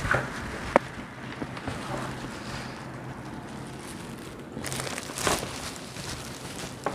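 Handling noises from unboxing an air fryer's packaging: a sharp click just under a second in and a rustling scrape around five seconds in, over a steady low hum.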